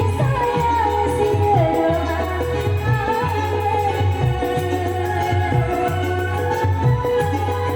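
Music: a wavering, sliding lead melody over held tones and a steady pulsing bass beat.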